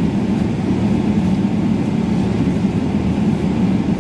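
Steady cabin noise of a Boeing 777-300ER taxiing: a low, even rumble with a steady hum.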